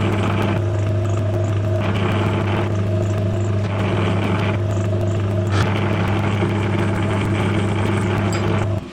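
Small metal lathe running, a loud steady motor hum under a hiss that swells and drops in stretches of about a second. It cuts off abruptly near the end.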